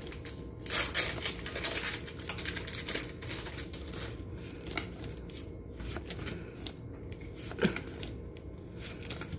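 Pokémon trading cards being flicked and slid one behind another in the hands, a run of short, irregular papery rustles and flicks as cards rub over each other.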